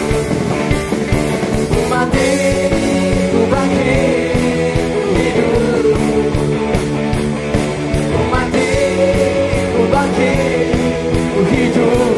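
Worship band playing an upbeat rock-style song with electric guitar, bass and a steady drum beat, with singers singing the Indonesian lyrics over it.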